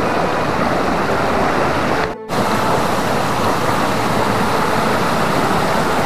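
Loud, steady rush of a waterfall and of its stream cascading over rocks. The sound drops out briefly about two seconds in.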